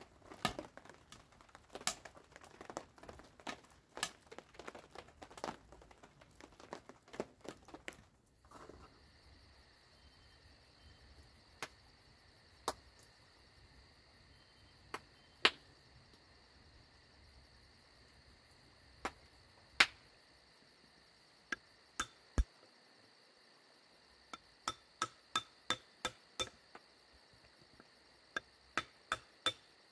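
Mason hammer striking a concrete block: scattered single sharp knocks, then a quick run of about eight taps near the end as the block is chipped to shape. Before this, about the first eight seconds hold irregular crackling and rustling.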